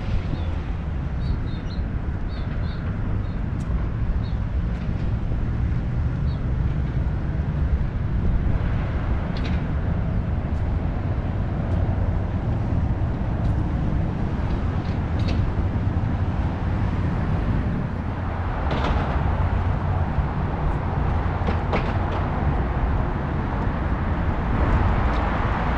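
Waterfront outdoor ambience: a steady low rumble with a few faint high chirps in the first few seconds and brief rushing swells later on.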